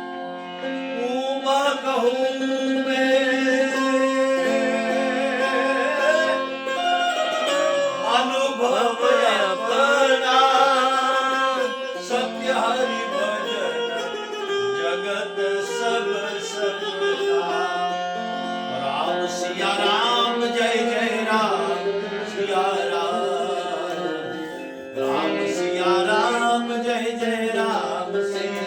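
Indian devotional singing: a voice with sliding ornaments over steady held notes and instrumental accompaniment.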